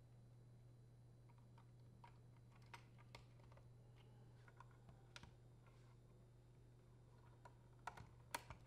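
Faint, scattered clicks of plastic wire-harness connectors being handled and pushed onto the terminals of a dishwasher control board, with a couple of sharper clicks near the end, over a low steady hum.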